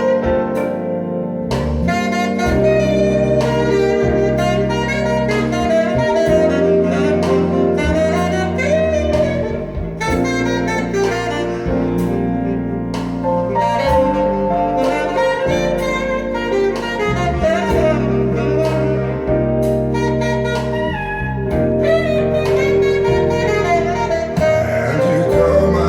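Jazz instrumental break with a saxophone solo over bass and drums, played back through a DIY speaker system.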